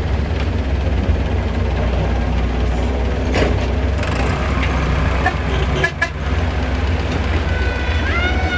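Heavy diesel machinery running steadily, with a low engine rumble. A few sharp clanks come about three and a half seconds in and twice near six seconds.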